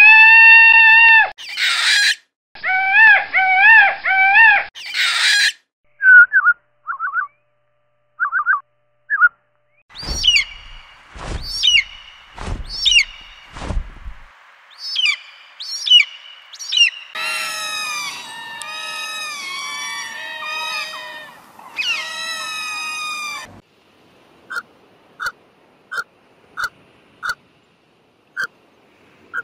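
A run of different bird calls. It opens with two loud, drawn-out peacock calls. Then come a few short chirps, a series of high, sharp falling calls with some low thumps, a busy stretch of overlapping calls, and finally short, evenly spaced pips about once or twice a second.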